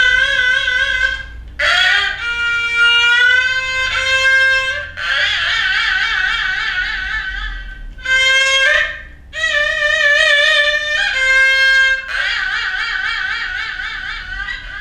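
Solo haegeum, the Korean two-string fiddle, playing the slow jinyangjo movement of a sanjo: long bowed notes with wide, deep vibrato, sliding up and down between pitches, with short breaks between phrases.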